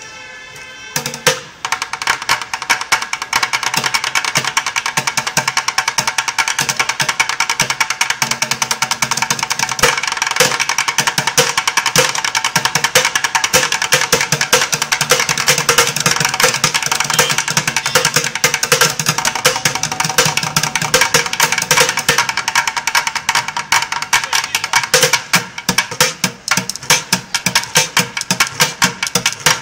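Two drummers playing fast rhythms with drumsticks on upturned plastic buckets, a dense rapid stream of stick hits starting about a second and a half in.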